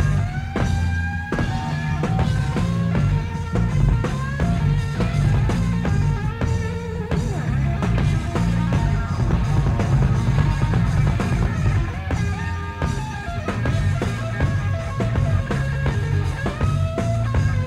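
Live hard-rock band playing an instrumental passage with no vocals: electric guitar lead lines with bent notes over bass guitar and a driving drum kit.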